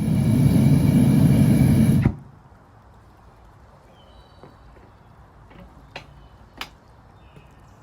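A loud, steady roar that cuts off suddenly about two seconds in. It is followed by quiet background with a few faint chirps and two sharp clicks near the end.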